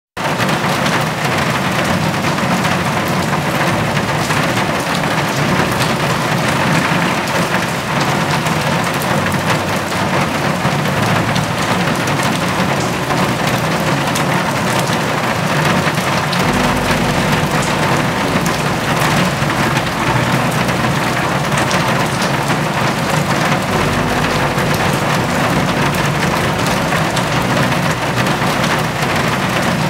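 Steady rain, a dense patter of drops on hard surfaces. A low rumble joins about halfway through.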